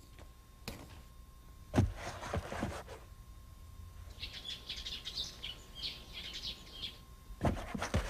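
Small birds chirping for a few seconds in the middle, as morning ambience. Around it are a few soft knocks and shuffles of feet stepping into sneakers on a tiled floor, with two sharper knocks near the end.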